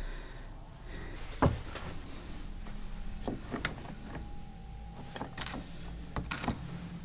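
Old iron shackles and their chain on a wooden door frame being handled: a sharp knock about one and a half seconds in, then scattered metal clicks and clinks, with a low steady hum underneath.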